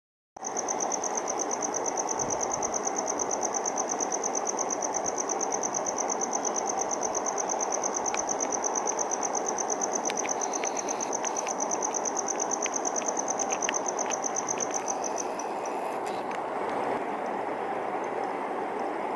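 Male cricket chirping by rubbing the toothed vein under one forewing against the edge of the other: a steady, rapidly pulsed, high-pitched song that stops about fifteen seconds in, after which only a few faint chirps come. A steady low hiss lies underneath.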